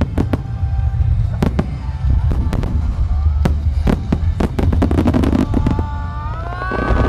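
A Marugo fireworks display: a rapid series of sharp shell bursts and reports from a starmine barrage and aerial shells, over a continuous low rumble. Several tones rise in pitch near the end.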